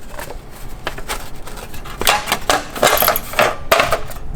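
Homemade aluminium mounting plate clinking and scraping against the engine's studs as it is worked down into place: a run of irregular light metallic clicks and knocks, busiest from about halfway through.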